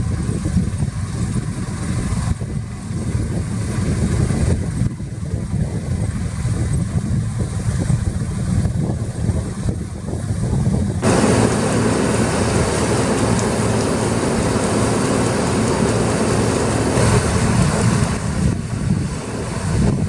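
Deutz-Fahr 6090 HTS combine harvester running as it cuts and threshes wheat, a steady deep drone. About eleven seconds in, a louder rushing noise joins it.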